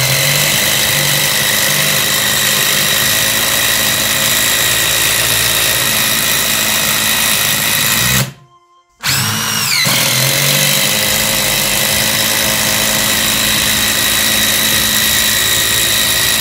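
DeWalt DCF887 18 V brushless cordless impact driver hammering a long 200 mm self-tapping screw in, running steadily at full speed. It stops abruptly about eight seconds in, then starts again and runs on.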